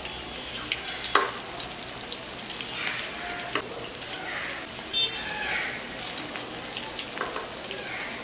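Batter-coated pointed gourd (potol) fritters deep-frying in a wok of hot oil: a steady sizzle with small crackles, and a few sharp clicks, the loudest about a second in.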